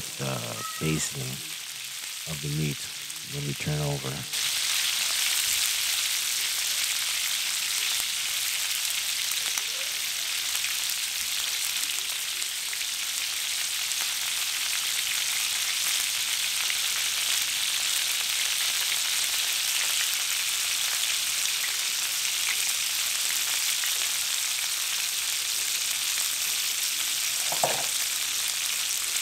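Chuck roast searing in butter and olive oil in a cast-iron skillet: a steady frying sizzle that jumps louder about four seconds in and then holds.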